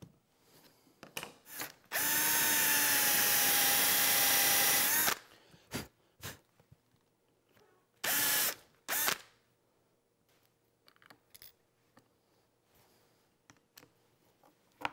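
Cordless drill boring holes into a wooden miter-box fence: one steady whine of about three seconds with a slight rise as it stops, then two short bursts a little later.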